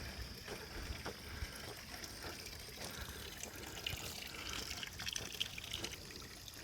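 Faint trickling water with scattered light footstep-like clicks on a wet trail, over a steady high-pitched tone.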